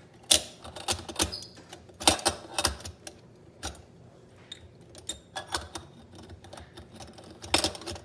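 Stainless steel stovetop moka pot being handled and put together: irregular metal clicks and clanks of its parts and hinged lid, the loudest a little after the start, around two seconds in and near the end.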